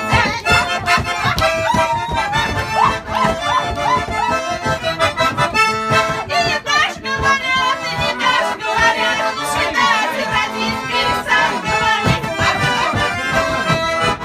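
Russian garmon (button accordion) playing a plyaska dance tune, with melody and a steady rhythmic bass-and-chord accompaniment.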